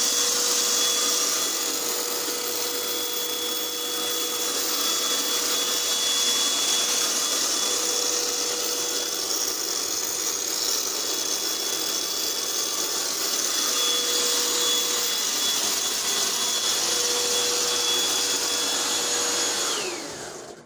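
A high-speed electric motor running steadily with a rush of air and a thin whine. Near the end it is switched off: the whine falls in pitch as it spins down and stops.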